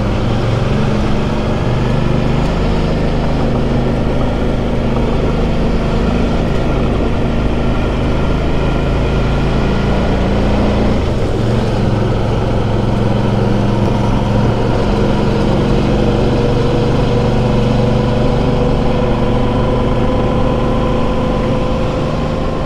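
Motorcycle engine running at steady cruising revs under way, with wind and road noise. Its pitch creeps slowly upward over the stretch.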